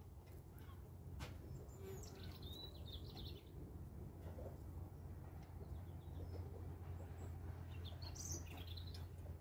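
Faint bird chirps over a low, steady outdoor background rumble, in a short cluster about two seconds in and again near the end, with a single sharp click about a second in.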